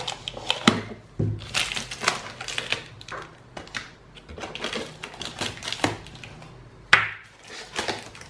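Small pocket knife slitting the packing tape on a cardboard box, then the cardboard flaps and box being handled, with irregular scraping and sharp clicks. A louder sharp snap comes about seven seconds in.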